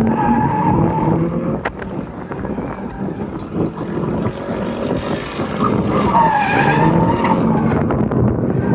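Drift car engines revving up and down on the throttle with tires squealing as cars slide through a corner; a loud squealing pass swells about six to seven seconds in.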